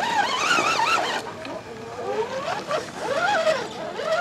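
Radio-controlled scale Land Rover Defender crawler's electric motor and gearbox whining, its pitch rising and falling as the throttle is worked while it claws up a dirt slope.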